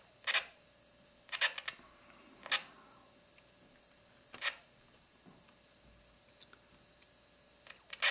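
Short, sharp pops and crackles from the Panasonic CT-101 pocket TV's small speaker as a multimeter probe is touched on and off a connector pin that, when grounded, brings the set's sound and picture on: a sign of the fault the owner suspects to be a cold solder joint or bad connection at that pin. About six pops come at irregular spacing, three in quick succession a bit over a second in, with a faint steady tone cutting in and out between them.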